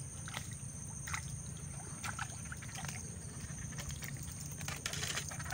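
A hooked fish splashing at the surface of the water as it is reeled in: faint, irregular small splashes and ticks, coming closer together about five seconds in.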